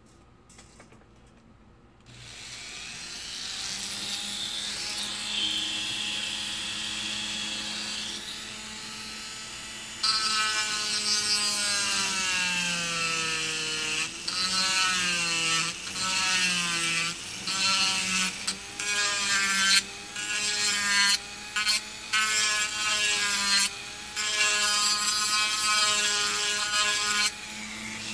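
A corded Dremel rotary tool with a barrel sanding drum spins up and runs, then sands the plastic and resin fender flares of a model car body. From about ten seconds in, the rasping of the drum on the plastic comes and goes in short passes, and the motor's whine drops in pitch under load and picks up again between passes.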